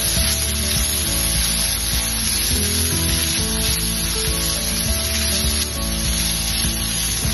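Shrimp and green bell pepper sizzling steadily in butter and oil in a frying pan as they are stirred with a silicone spatula, with background music playing.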